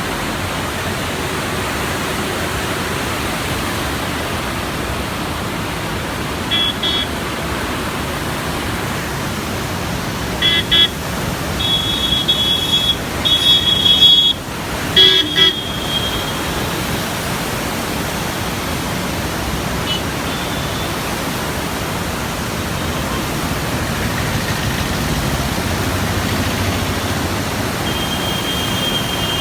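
Steady rush of heavy floodwater pouring through the open gates of the Krishna barrage. Several short, high horn toots sound over it, about a third of the way in, a cluster around the middle that is the loudest, and again near the end.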